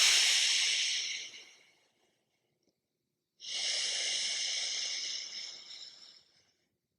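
Alternate nostril breathing: two long, airy breaths through one nostril while the other is held closed. The first is louder and fades out about a second and a half in; the second starts about halfway through and is quieter.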